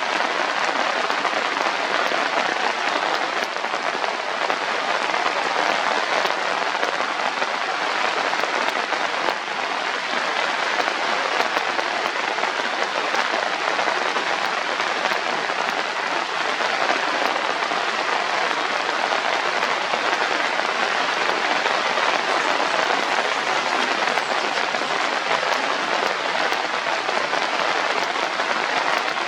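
Steady, even hiss of water, like rain falling on surfaces.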